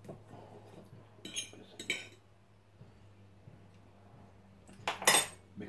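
Metal fork clinking against a ceramic plate and bowl as cooked rabbit meat is pulled off the bone: two sharp clinks about a second in, then a louder clatter near the end.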